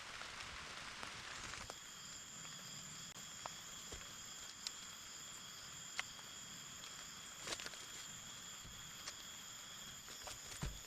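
Faint steady high-pitched insect chorus, with scattered light clicks and taps. A hiss of rain cuts off suddenly just under two seconds in.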